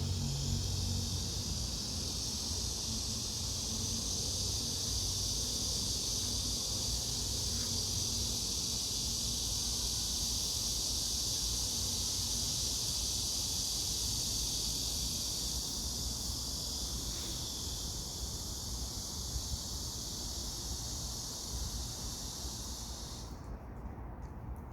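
Steady, high-pitched insect chorus that cuts off suddenly near the end, over a low rumble.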